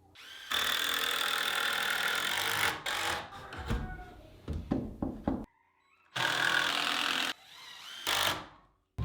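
Power saw cutting framing lumber, two cuts of a couple of seconds and about a second, each a loud steady run. Between them come several separate knocks of wood being handled.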